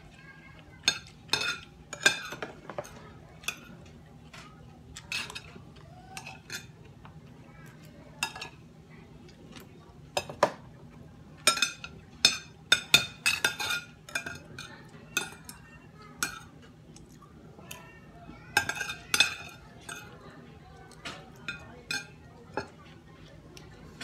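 Metal spoon and fork clinking and scraping against a glass bowl and a ceramic plate while eating, in irregular clusters of sharp clinks.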